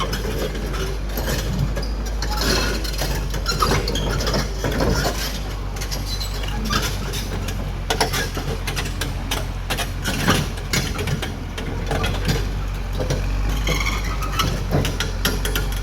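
Caterpillar D6R XL bulldozer's diesel engine running steadily, with frequent irregular metal clanks and rattles over it.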